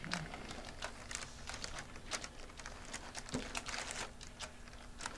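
Small irregular clicks, taps and scrapes of hands working epoxy-coated hinges into the hinge slots of a model airplane's aileron and wing, with a faint steady hum underneath.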